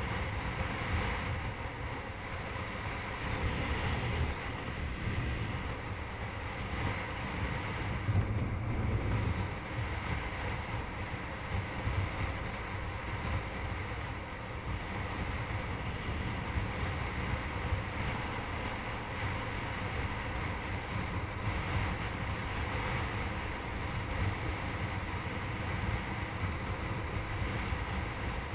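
Wind rushing over the camera microphone on a motorcycle cruising at highway speed, a steady low rumble with the engine's even drone underneath.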